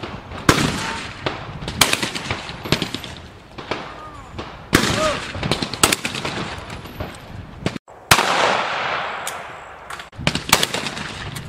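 Shotgun shots fired at clay targets on a skeet field: about eight sharp reports at irregular intervals, each with a short echoing tail. Some are close and loud, others fainter from other shooters.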